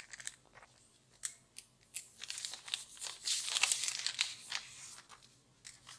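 Thin plastic protective film and sleeve being peeled and slid off a new smartphone, crinkling and rustling. A few light ticks of handling come first, and the rustling is loudest from about two seconds in until about five.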